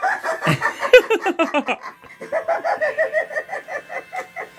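Dagger Mike clown animatronic playing its recorded cackling laugh through its built-in speaker, rapid repeated laugh syllables that pause briefly near the middle. A sharp knock sounds about a second in.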